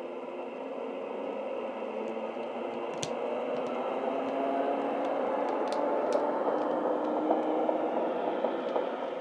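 Model railway sound decoder playing the drive sound of a Class 419 motor luggage van through the model's small speaker: electric traction motors humming and whining as the model runs past, growing louder and then easing off. A few sharp clicks, the loudest about three seconds in.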